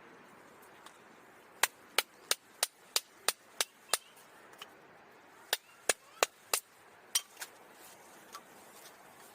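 Small firewood being split by hand: sharp wooden knocks at about three a second, in two runs of six to eight strikes with a short pause between.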